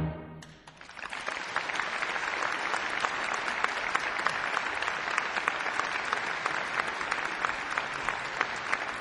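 Concert audience applauding steadily: many hands clapping, beginning about a second in as the last chord of the choir and string orchestra dies away.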